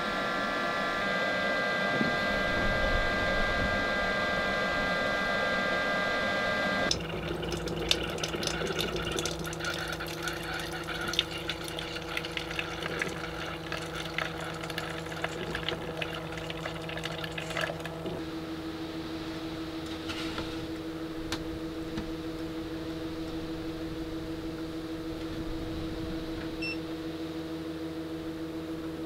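Hamilton Beach single-serve coffee maker brewing into a metal mug, running with a steady electric whine. About seven seconds in it changes to a lower steady hum with rapid crackling and liquid sounds as the hot water comes through. The crackling dies away after about eighteen seconds, leaving the steady hum.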